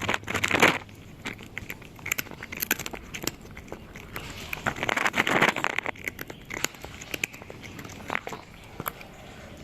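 Cat chewing a crunchy snack: a run of sharp, irregular crunches, with denser bouts of crunching right at the start and again about five seconds in.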